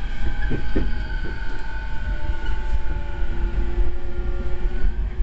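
Inside a JR East E231-series electric commuter train running between stations: the steady whine of its VVVF inverter and traction motors over a constant low rumble of wheels on rail, with a few brief knocks just under a second in.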